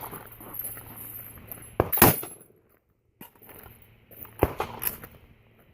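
Rifle shots fired at irregular intervals through a phone's microphone, the loudest about two seconds in and a few more around four and a half seconds in.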